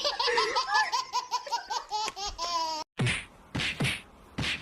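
High-pitched laughter in a rapid run of short bursts, about four or five a second, like a small child laughing hard. It breaks off suddenly nearly three seconds in, and a few short, loud, noisy bursts follow.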